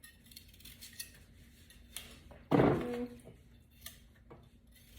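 Light clinks and clatter of dishes and utensils being handled, with one louder knock about two and a half seconds in.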